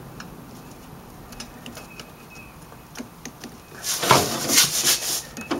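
A pry bar clicking and tapping against the exhaust metal as it levers a misaligned heat riser flange into line with the muffler so its second bolt will go in. About four seconds in, a loud metallic scrape lasting just over a second.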